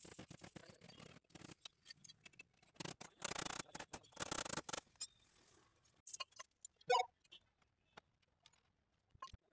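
Small metal clicks, taps and scraping from hand work on a car's rear drum brake, as brake shoes and springs are worked into place on the backing plate with a screwdriver during a brake-shoe replacement. There are scraping stretches about three to five seconds in and a short metallic ring about seven seconds in.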